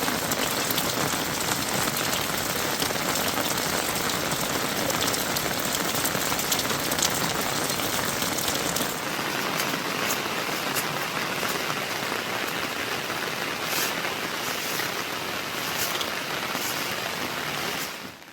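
Heavy monsoon rain falling steadily. About halfway through it becomes a little softer, and separate drops can be heard striking a surface.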